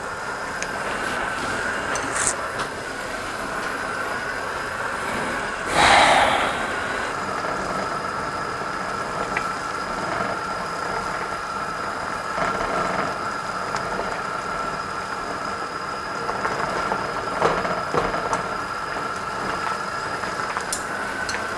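Ramyun noodles boiling in an aluminium pot on a gas burner while being stirred with chopsticks: a steady bubbling and burner hiss, with a brief louder noise about six seconds in.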